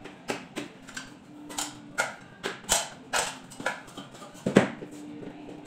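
Irregular sharp clicks and knocks, about a dozen, the loudest about four and a half seconds in, from handling a ceiling LED light fixture and stepping down an aluminium ladder.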